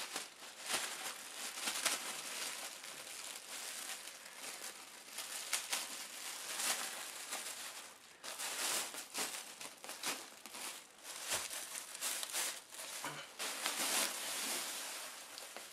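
Clear plastic packaging bag crinkling and rustling with dense crackles as a boxed kit is pulled out of it and opened by hand, louder in stretches about halfway through and near the end.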